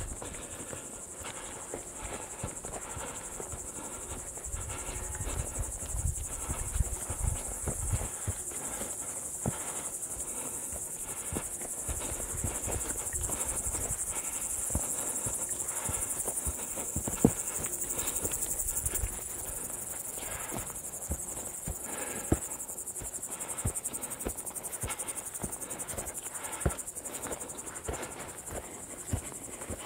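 Crickets trilling steadily at a high pitch, with scattered footsteps and clicks from walking over the trail; one sharper knock about halfway through.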